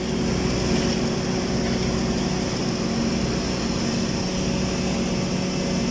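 Automatic girth welding machine running steadily on a horizontal tank seam during submerged-arc welding: a constant drone and hiss with a steady low hum.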